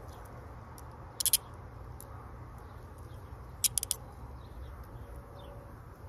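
Metal handcuffs and a bobby pin clicking as the cuff lock is worked behind the back: a short cluster of sharp clicks about a second in and several more a few seconds later, over a steady low rumble.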